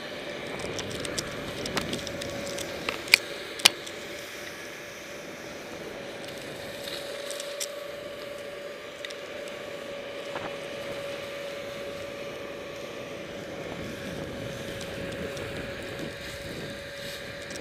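Skis sliding over a groomed piste, a steady hiss with a steady hum under it, and two sharp clicks a little after three seconds in.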